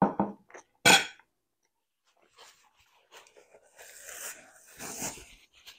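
Two short knocks in the first second, then a paper napkin crinkling and rustling as it is wiped across the mouth.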